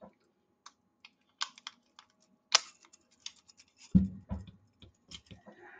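Small sharp metal clicks and scraping as the steel slide and barrel bushing of a Colt 1911 pistol are handled and worked toward a very tight fit. Two heavier knocks come about four seconds in.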